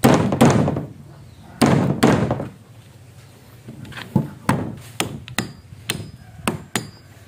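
A fist knocking on a solid wooden beam at a pegged scarf joint, two pairs of heavy knocks that ring briefly in the timber. Then a small hammer tapping lightly along the wood: a run of about ten quick, sharper taps.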